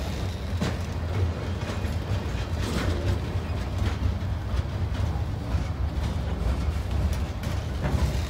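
Freight train of open-top gondola cars rolling past: a steady low rumble with irregular clicks and knocks from the wheels on the rails.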